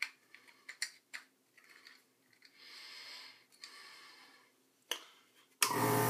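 Light clicks and rubbing of clear plastic parts as the NasoNeb dispenser with its tube retainer is handled. About half a second before the end, the NasoNeb nebulizer's air compressor switches on suddenly and runs with a steady hum.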